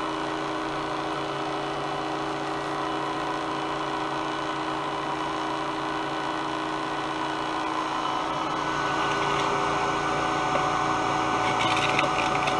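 Professional cotton candy machine running, its spinning head giving a steady electric motor hum. The hum grows louder about two-thirds of the way in, with quick rattling clicks near the end.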